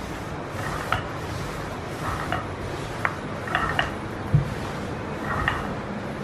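Long wooden rolling pin rolled over a sheet of dough on a stone counter: a steady rubbing noise with scattered light clicks and clinks, and a dull knock about four seconds in.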